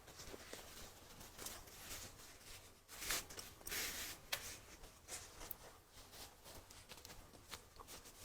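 Plastic poly bag crinkling faintly in irregular bursts as a brass cabinet handle is slipped into it, with a few light ticks of handling.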